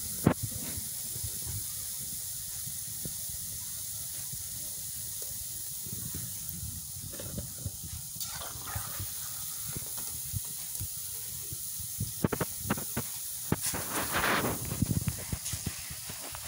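Hot oil sizzling steadily around small pieces of daddies dough as they deep-fry. A metal spoon clicks and scrapes against the pot, busiest in the last few seconds.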